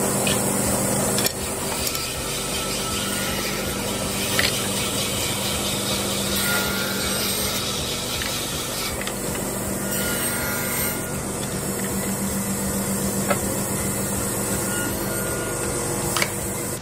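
A table saw runs with a steady hum while a sheet of UHMW plastic is pushed and rubbed across its table, with a constant rasping hiss over the motor.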